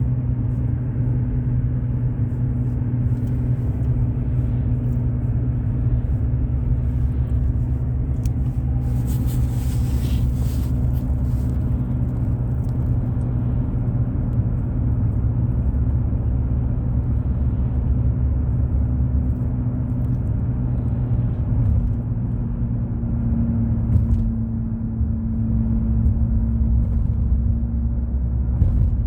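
Steady low rumble of a car on the road, heard from inside the cabin: engine and tyre noise, with a brief hiss about nine seconds in.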